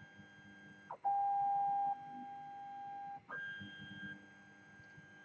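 3D printer's NEMA 17 stepper motors whining at steady pitches as they home and move the print head before auto bed-leveling. A higher whine runs until about a second in. A louder, lower whine follows for about two seconds, and then the higher whine returns. Each one starts and stops with a short slide in pitch as the motors speed up and slow down.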